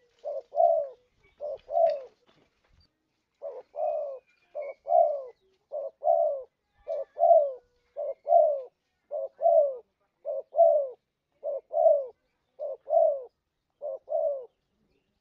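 Spotted dove cooing: a repeated phrase of a short coo followed by a longer coo that falls in pitch, about once a second. The phrases pause briefly about two seconds in and stop shortly before the end.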